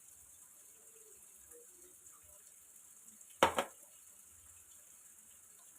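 Faint steady hiss, with one short sharp knock about three and a half seconds in.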